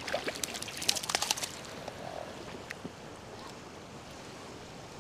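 A hooked rainbow trout splashing at the surface as it is drawn into a landing net. A quick run of sharp splashes comes in the first second and a half, then one more, over the steady wash of the river.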